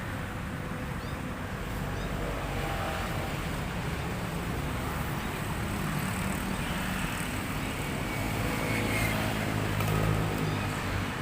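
Steady low engine rumble, swelling about nine to ten seconds in as an engine draws closer and passes.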